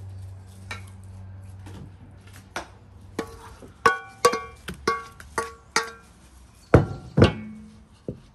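Wooden spoon knocking against the rim of an enamel bowl to shake a crumbly mixture into an aluminium basin: a run of sharp, ringing raps, then two heavier thumps near the end.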